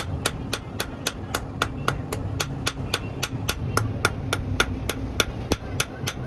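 Hammer striking steel on an anvil in a fast, even rhythm of about four blows a second, over a low steady motor hum.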